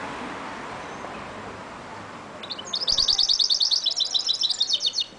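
Caged goldfinch × canary mule singing a fast, rapid trill of repeated high notes that starts about halfway through and stops just before the end, over a faint steady rush that fades in the first half.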